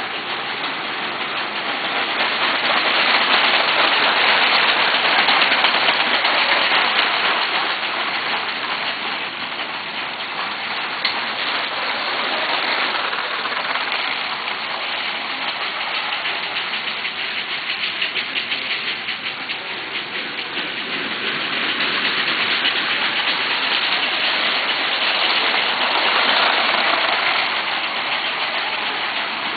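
Lego 12-volt trains running on plastic track: a steady rushing whir of the small electric motors and wheels that swells louder twice as trains come close.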